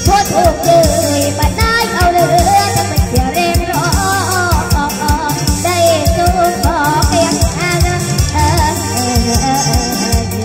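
A young girl singing a Thai song into a handheld microphone, her voice wavering with vibrato, over a backing track with a steady beat and shaker-like percussion.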